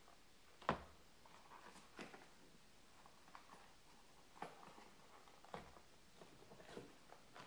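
Small boxed bearings lifted out of a cardboard parcel and set down on a cardboard-covered bench: one sharp knock about a second in, then a few softer knocks and rustles of packaging.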